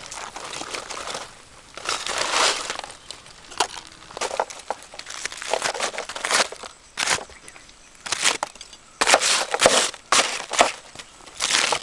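Charred aluminium foil crinkling and tearing as a knife slits and peels it open, in irregular rustling bursts that come thicker and louder near the end.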